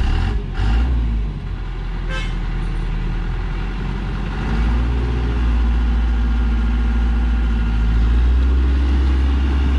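Diesel engine of a heavy truck loaded with acacia logs, labouring to climb a muddy slope. Its revs rise about halfway through and again near the end. A few short knocks come in the first two seconds.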